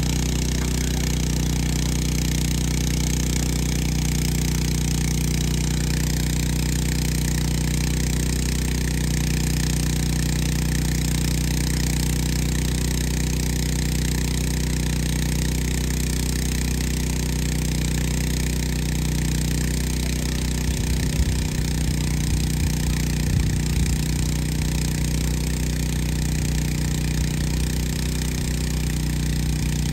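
A small engine running steadily at an even speed, with a few low bumps and knocks a little past the middle.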